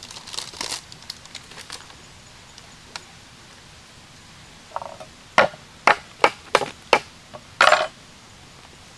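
Papery crackle of garlic skins being peeled by hand, then a quick run of about six sharp knocks on a wooden cutting board, about three a second, the knocks much the loudest.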